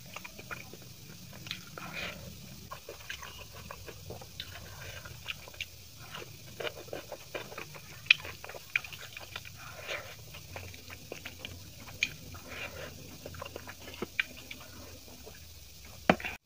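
Close-miked eating sounds: chewing and wet mouth smacks, and the squish of biryani rice as fingers mix it on the plate. These come as irregular small clicks, with a sharper smack about eight seconds in and another near the end.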